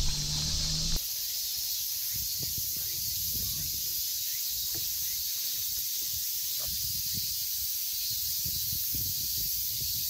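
Steady hiss of water spraying from a portable shower hose as a person rinses off, with irregular splashing underneath.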